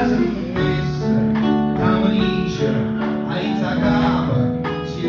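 Live band playing a Neapolitan song, with guitar to the fore.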